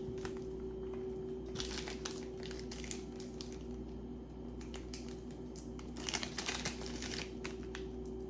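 Packaging crinkling and rustling in bursts as several tennis bracelets are unwrapped by hand. The two busiest stretches are about two seconds in and again around six to seven seconds. A steady electrical hum runs underneath.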